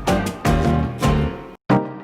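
Background music with a steady beat of percussion and bass. It cuts off about one and a half seconds in, and one last short note or chord follows and fades.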